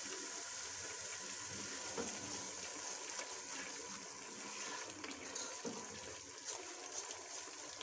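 Ginger-garlic and chilli masala sizzling steadily in hot oil as a splash of added water boils off, with a few light scrapes of a spoon stirring it in a metal pot.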